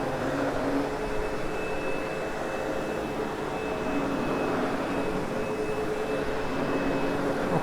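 Sebo X8 upright vacuum running steadily over loop carpet, a constant motor hum with a thin high whine on top, while grooming the carpet after cleaning.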